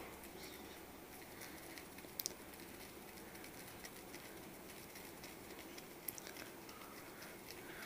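Peanuts frying in a little oil in a kadai, turned with a wooden spatula: a faint steady sizzle with soft stirring and a few light clicks of nuts against the pan, around two and six seconds in.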